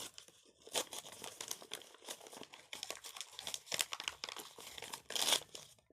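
A blind bag's wrapper being ripped open and crinkled by hand: a run of irregular crackles, with a louder crackle near the end.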